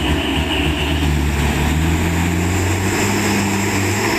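Truck engine running steadily, a continuous low drone with rumbling road noise.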